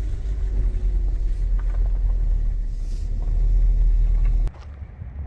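A vehicle's engine running with a steady low rumble. It cuts off abruptly about four and a half seconds in, leaving quieter background noise.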